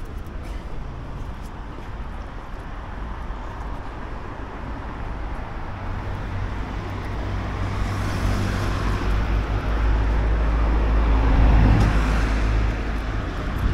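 Road traffic noise, with a motor vehicle's engine growing louder as it approaches and passes close, loudest about eleven to twelve seconds in.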